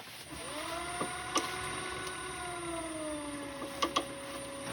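Wood lathe motor starting up with a rising hum, running steadily, then dropping to a lower steady pitch about three seconds in as the speed is turned down. A few light clicks.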